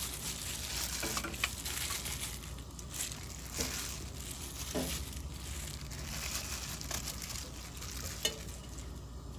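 Water at a rolling boil in a stainless steel stockpot, a steady bubbling hiss, with a few short splashes and knocks as chunks of raw beef are slid in to blanch.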